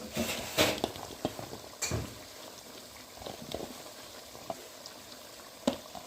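A pot of chicken frying with spices, sizzling and bubbling steadily. In the first two seconds a spoon clatters and knocks in the pot as double beans go in and are stirred, and there is one sharp tap near the end.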